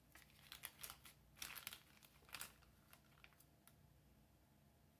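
Faint crinkling of a thin polyurethane bag being pressed over a watch dial by fingers, a few short crackles in the first half, then near quiet.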